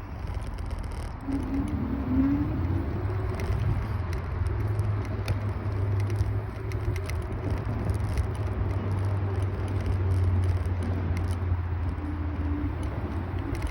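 Steady low wind buffeting and road rumble from riding a Kaabo Wolf Warrior 11 Pro electric scooter, with scattered small clicks and rattles and a brief wavering tone about two seconds in and again near the end.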